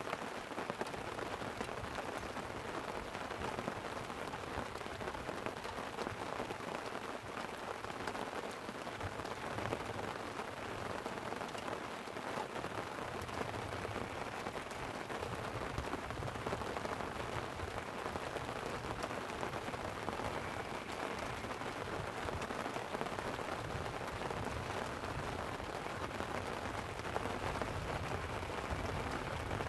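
Light rain falling on a tent: a steady, dense patter of drops. A low rumble grows stronger about halfway through.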